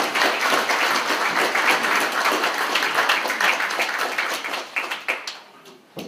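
Congregation applauding, a dense patter of many hands clapping that dies away about five seconds in.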